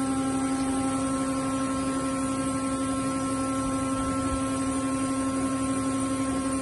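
Steady electrical hum: one strong low tone with a few fainter higher tones over a constant hiss.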